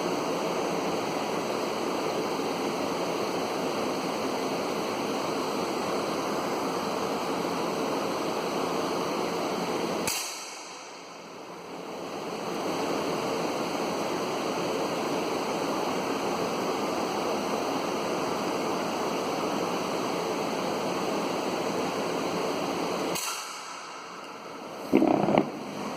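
Steady rushing noise broken by two single gunshots about 13 seconds apart, each followed by a second or two in which the background suddenly drops away. A louder short burst comes near the end.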